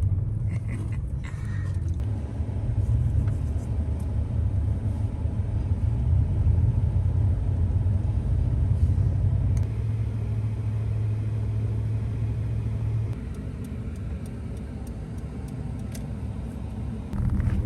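Vehicle engine running with a steady low rumble that eases off about three quarters of the way through.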